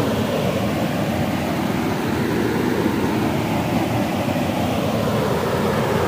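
Steady rush of a small waterfall pouring over a rock ledge into a pool.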